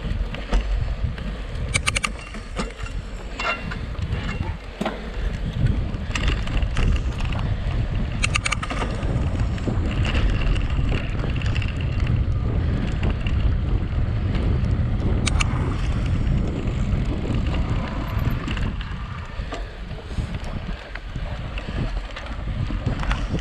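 Wind buffeting the microphone of a mountain bike moving at speed, with sharp rattles and knocks from the bike jolting over rough ground.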